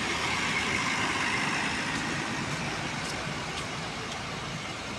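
Intercity coach bus driving past close by and pulling away, its diesel engine and tyres loudest in the first couple of seconds, then fading as it moves off.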